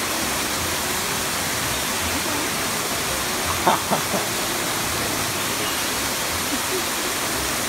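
Steady rushing of running water, with a few brief calls about three and a half seconds in.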